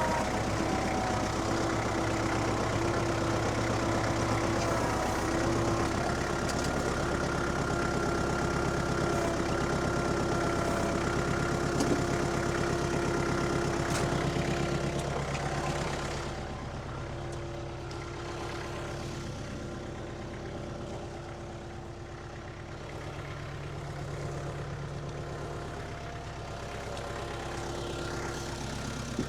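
An engine running steadily at a low, even speed, dropping somewhat in loudness about sixteen seconds in.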